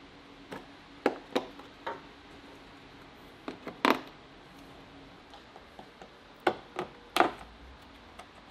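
Plastic trim clips being pried out of a car's plastic underbody tray, giving irregular sharp clicks and knocks of tool on plastic.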